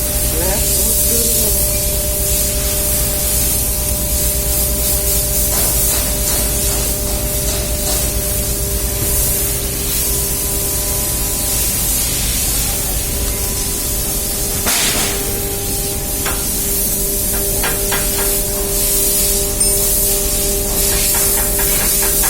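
Steady machinery hum with a constant hiss, broken by a sharp knock partway through and a run of quick, even ticks near the end.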